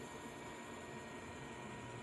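Rinnai RBR-IGB310 hybrid induction cooktop running, giving a steady hiss of cooling-fan noise with a faint steady high tone.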